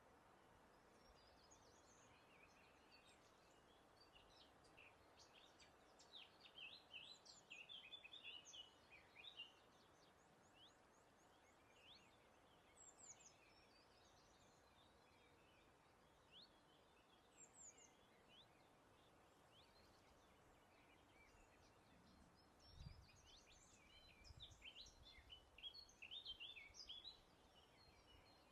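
Small songbirds singing softly: a flurry of quick chirps and trills about six seconds in, scattered single calls after it, and another flurry near the end, over a faint steady background hiss.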